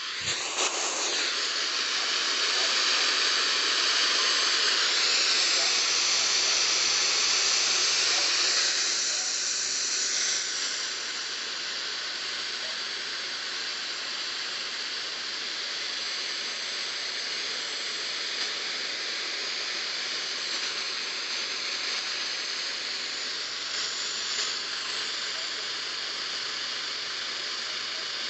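Radio static: a steady hiss of noise from a receiver picking up no clear signal. It swells up right at the start, stays louder for about the first ten seconds, then settles to a slightly lower, even hiss.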